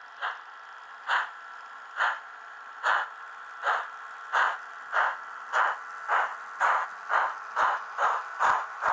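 Steam-exhaust chuffs from a Märklin H0 model steam locomotive's sound decoder as it pulls away with its train, the beats quickening from a little under one a second to about two a second.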